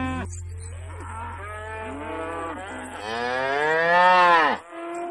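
Cows mooing, several calls in turn. The longest and loudest, about three seconds in, rises and falls in pitch.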